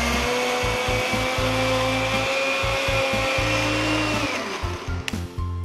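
Electric mixer grinder (mixie) running with a small jar, grinding grated coconut, green chili and mustard seeds with a little water into a semi-coarse paste. Its steady whine rises slightly, then winds down and stops about four seconds in. Background music with a steady low beat.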